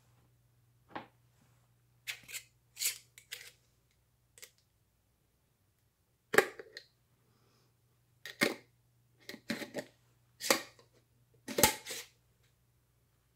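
Glass jar with a metal screw lid being handled: a run of sharp, irregular clicks and knocks of glass and metal, the loudest coming in the second half.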